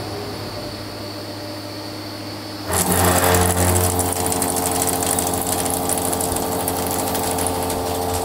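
Large CNC milling machine taking a cut in a C45 steel block. A steady machine hum runs for the first few seconds. Then, a little under three seconds in, the sound jumps suddenly louder as the cutter bites into the steel, and a steady cutting note with several held tones and a high hiss carries on from there.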